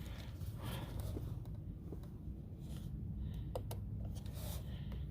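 Faint clicks and light scraping of a small Torx screwdriver working a tiny screw out of a steering-wheel paddle shifter bracket, over a low steady hum.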